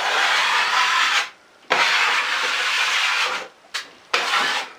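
A 6-inch drywall knife scraping across a ceiling in about four downward strokes, two long ones and then two short ones, shaving the high spots and ridges off a skim coat of partly set joint compound mixed with plaster of Paris.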